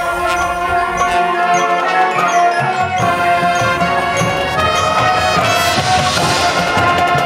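Marching band playing, with held brass chords over percussion; the low brass and drums drop back for a moment and come back in about three seconds in.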